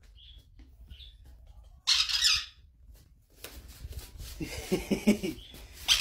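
Pet conure screeching loudly once, about two seconds in, with fainter chirps before it and quieter squawking later.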